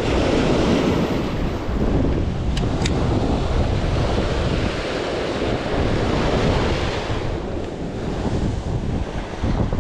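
Surf washing onto the beach, with wind buffeting the microphone.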